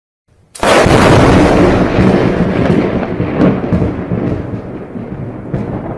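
Thunder sound effect: a sudden loud crack about half a second in, then a long rumble that slowly fades, broken by a few short, sharp crackles.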